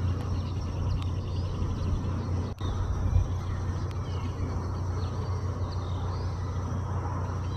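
Outdoor ambience: a steady low rumble with faint high chirps of small birds scattered through it. A brief dropout about two and a half seconds in.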